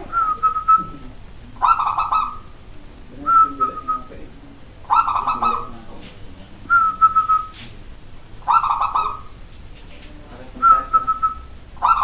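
Zebra dove (perkutut) cooing in a repeated song. Short phrases come about every second and a half to two seconds, louder rattling coos alternating with thinner whistled notes.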